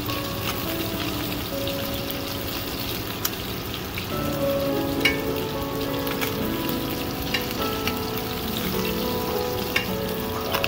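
Round scad frying in shallow oil in a pan, a steady sizzle. A few sharp clicks come from metal tongs against the pan and glass dish as the fried fish are lifted out.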